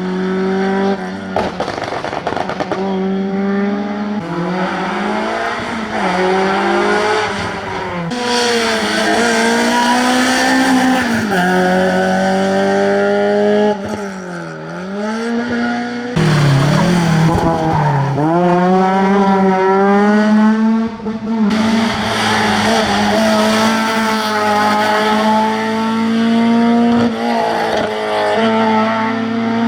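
Classic rally cars on a tarmac stage, engines revving hard, the pitch falling away on braking and downshifts and climbing again under acceleration, with tyres squealing. Several passes follow one another with abrupt changes in between.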